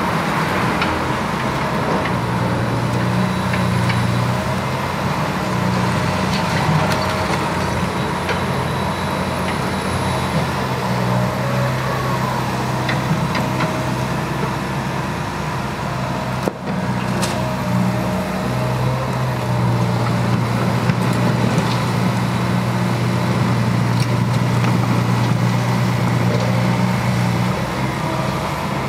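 Liebherr 906 excavator's diesel engine running steadily with a constant low hum, its strength shifting now and then as the machine works; a brief drop about halfway through.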